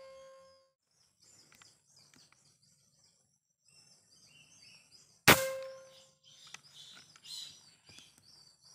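A single shot from a Jawara Mouser OD32 PCP air rifle about five seconds in: a sharp crack followed by a metallic ring that fades over about a second.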